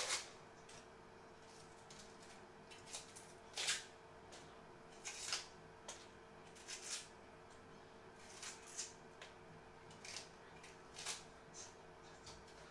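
Small kitchen knife peeling an onion: short, irregular scrapes and rustles as the dry, papery skin is cut and pulled away. A faint steady hum runs underneath.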